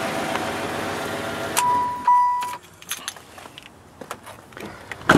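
The rebuilt LT1 V8 of a 1996 Chevrolet Impala SS idling steadily, then shut off about a second and a half in. As it dies, a steady electronic warning chime sounds for about a second. Keys jingle after it, and there is a loud knock near the end.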